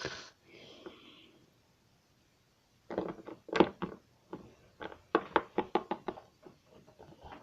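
Irregular light knocks and taps of small plastic toy figures being moved and set down on a hard surface, starting about three seconds in after a short hiss and a brief quiet gap.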